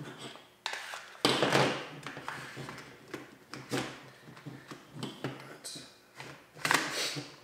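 Plastic parts of a Wells PDW gel blaster scraping and clicking as a body section is slid back onto it. The loudest scrape comes about a second and a half in, and another near the end.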